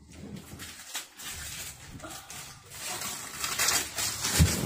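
Christmas wrapping paper being torn and crumpled off a gift. The rustling is loudest in the last two seconds, with a dull thump near the end.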